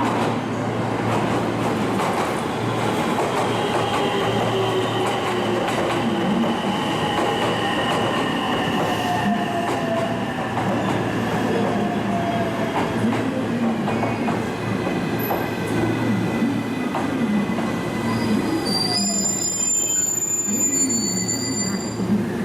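Train moving through a station with a steady rumble, thin tones sliding slowly down in pitch as it slows. About nineteen seconds in, several high-pitched squeals set in and hold.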